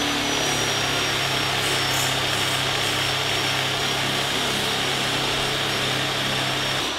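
Handheld sander working a car bumper, with its canister dust extractor running: a steady high whine over a low hum. The low hum stops just before the end.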